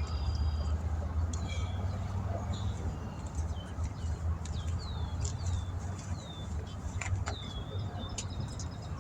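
Birds calling in short chirps that fall in pitch, several a second through the second half, over a steady low rumble like a running vehicle, with a couple of sharp clicks near the end.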